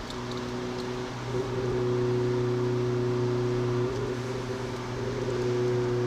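Renault Clio RS 200's four-cylinder engine pulling steadily under load during a lap. About four seconds in, its tone briefly breaks and then settles again.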